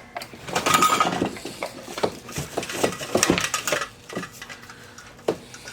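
Metal sewing-machine parts being handled, irregular clinks, knocks and rattles, busiest in the first second or so with one sharp knock near the end.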